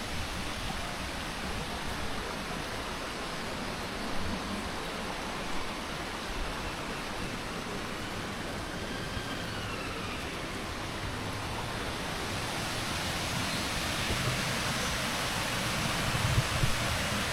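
Steady rush of flowing stream water, with a faint bird call about halfway through and a few soft footsteps, the last of them near the end.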